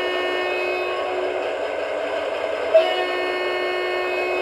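The sound decoder of a Piko G-scale BR 199 diesel model plays a diesel engine idling through its small speaker. Twice, about three seconds apart, a short horn-like tone sounds, each starting with a sharp click and fading after a second or two.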